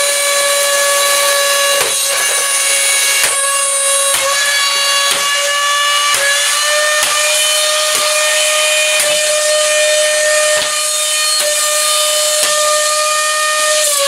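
Euroflex Monster of Italy handheld vacuum's motor running flat out in a steady high-pitched scream, its intake opened up and its filter removed. Light knocks come about every second as it is hit with a golf club.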